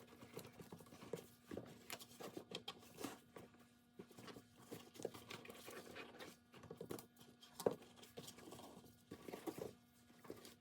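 Faint scattered clicks, taps and rustles of ICAT armor pieces being handled and adjusted around a boot, with one sharper click about three-quarters of the way through.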